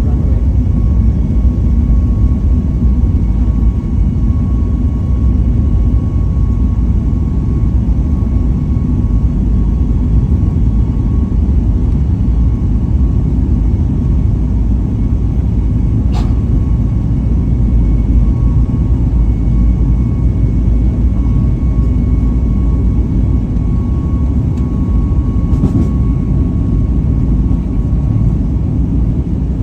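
Boeing 737 MAX 8-200's CFM LEAP-1B jet engines heard from inside the cabin: a steady loud rumble with a faint steady whine on top.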